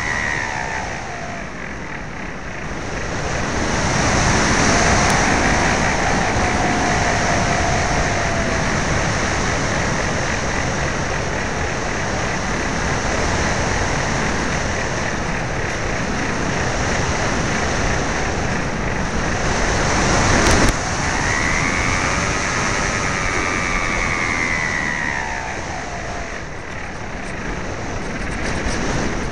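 Steady wind rushing over the onboard camera of a flying AXN Floater Jet RC plane, with the electric motor's whine gliding up and down in pitch as the throttle changes, plainest near the start and again about three quarters of the way through. A brief sharp knock about two-thirds of the way in.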